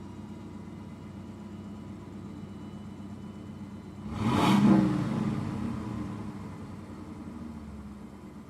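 Car engine running steadily, with a sudden loud surge about four seconds in that peaks within half a second and fades away over the next few seconds.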